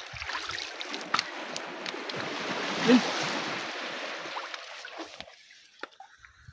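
Hands splashing and sloshing water in a shallow rock pool while grabbing a fish stranded there by the low tide. The water noise swells about three seconds in and stops abruptly about five seconds in.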